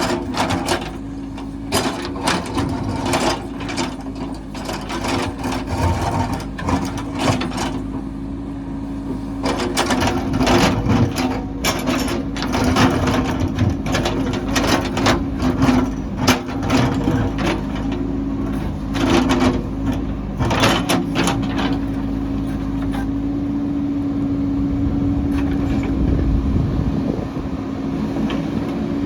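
Diesel engine of a heavy construction machine running steadily, with many sharp clanks and knocks over it, thickest in the middle stretch and thinning out near the end.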